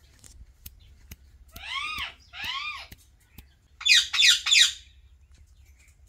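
Pet Psittacula parakeets (Alexandrine and Indian ringneck) calling: two arching, whistled calls about two seconds in, then three loud, harsh squawks in quick succession a little later, with faint clicks in between.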